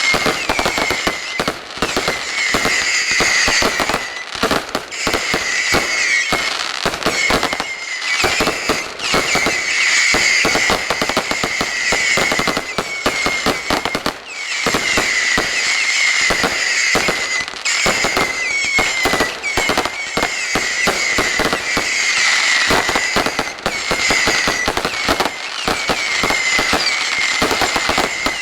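Aerial fireworks in a dense barrage: rapid bangs and crackling with no gaps, overlaid by high, wavering whistles.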